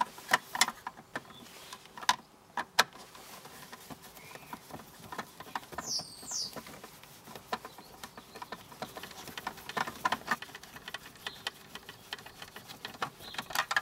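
Phillips screwdriver undoing the screws at the base of a car dashboard air-vent housing: scattered small clicks and ticks of the tool working against the screws and plastic fascia, with a quick cluster of clicks about ten seconds in. A short high chirp sounds about six seconds in.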